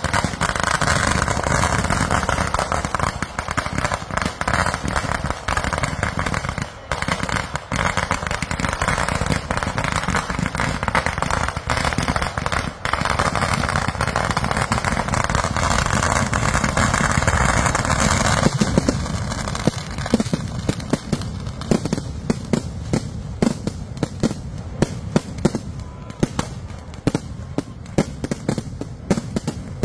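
Fireworks going off: a dense, unbroken crackling of ground fireworks for about the first eighteen seconds. It then changes to separate sharp bangs and pops, coming faster toward the end, as aerial shells are launched and burst.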